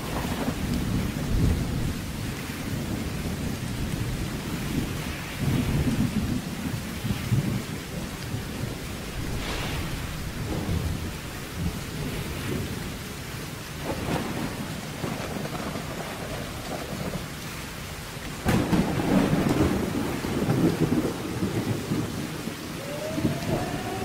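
Thunderstorm: steady heavy rain with rumbles of thunder, and a sharp thunderclap about eighteen seconds in followed by a long, loud rumble. Just before the end, a warning siren starts winding up, rising in pitch.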